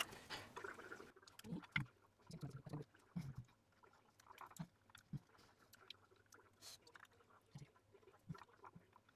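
Faint, scattered light taps and soft knocks of wooden chopsticks against a plate and the food as pieces of stuffed flatbread are moved and picked up.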